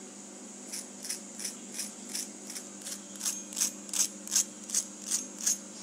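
Short dry clicking taps on the crisp fried crust of a radish fritter (mooli murauri), about three a second, growing louder after the midpoint: a show of how crunchy it has fried.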